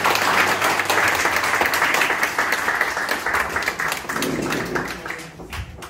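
A small audience applauding. The clapping is dense at first, then thins out and dies away near the end.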